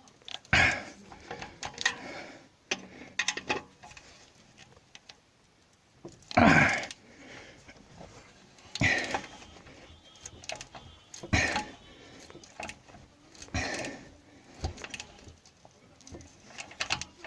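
Ratchet wrench with a long 13 mm socket tightening a loosened exhaust pipe clamp under a car. Short runs of pawl clicks come repeatedly, every two to three seconds. This is the clamp that had slipped and was causing the knocking.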